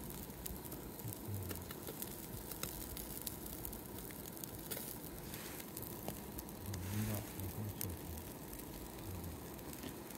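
Wood and charcoal fire crackling faintly, with scattered small sharp pops.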